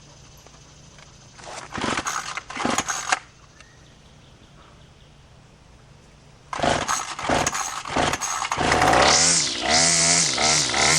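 Gas string trimmer (weed eater) being pull-started: a couple of pulls about two seconds in, then it starts about six and a half seconds in and runs, revving up and down, as the repaired trimmer head is test-run.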